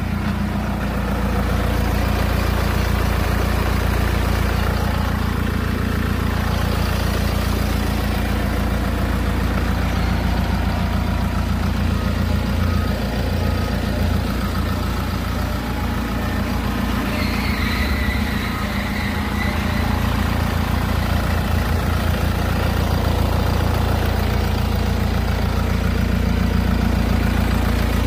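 2016 Hyundai Avante AD's engine idling steadily, heard close up in the open engine bay.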